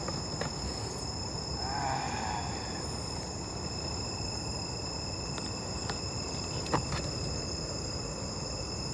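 Insects, crickets or the like, chirring steadily at a few high pitches over a low background hiss, with a couple of faint clicks.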